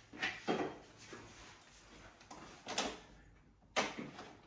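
Bezel frame clacking and knocking against the edge of a Samsung The Frame TV as it is pressed into place by hand. There are two knocks just after the start, another near the end of the third second and a sharp one about a second later.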